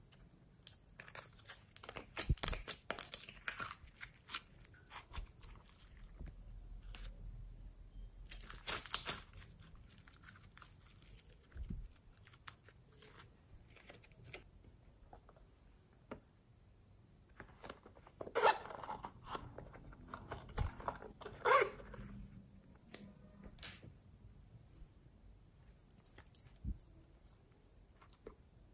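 Hands working sticky slime out of a plastic cup and handling small plastic containers: sticky crackling and tearing in three bursts, about two seconds in, around nine seconds in and from about eighteen to twenty-two seconds in, with scattered light clicks between.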